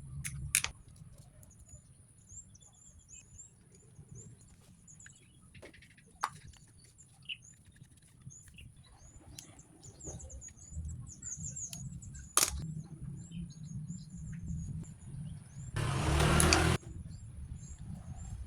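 Small birds chirping rapidly and continuously in the background. A few sharp clicks stand out, and a noisy burst lasting about a second comes near the end.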